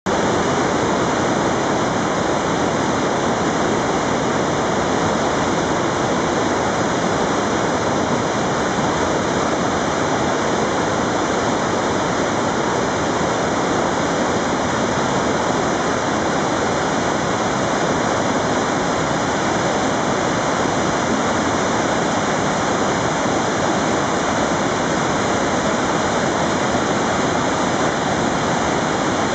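Mountain cascade of white water rushing steeply down over boulders: a loud, steady roar of water.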